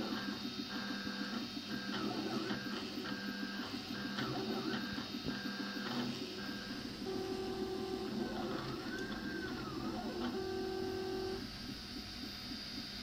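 Prusa i3 3D printer's stepper motors whining as the print head moves: a run of steady tones that jump to a new pitch with each move, with a rising-and-falling glide about two-thirds of the way through as the head follows a curve.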